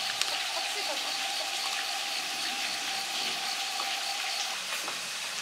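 Steady hiss of rain falling, with faint ticks of a cat crunching dry kibble from a plastic tub.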